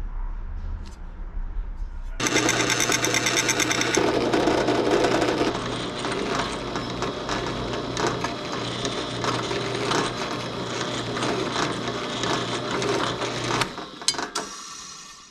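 An electric power tool starts about two seconds in and runs steadily with a fast, even rattle over a low hum, then stops shortly before the end.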